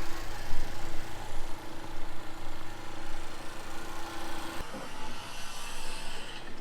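Steady mechanical hum, like a distant engine or machine, over outdoor background noise. It breaks off with a click after about four and a half seconds.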